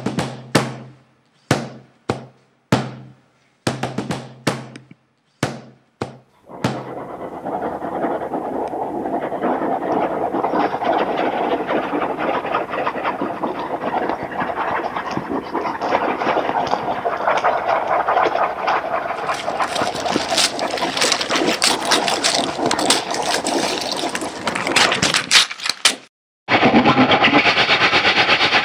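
Film soundtrack: about a dozen abrupt percussive hits, each cut off by silence, then a dense noisy drone that builds and grows brighter before stopping suddenly, followed by a fast, even rattling rhythm.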